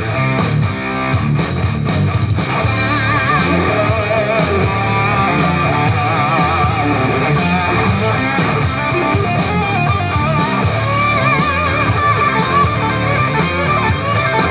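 Rock music with electric guitar and bass, played through an MGTEC Classic XL Bluetooth speaker and picked up by a microphone as a speaker sound test; steady and loud throughout.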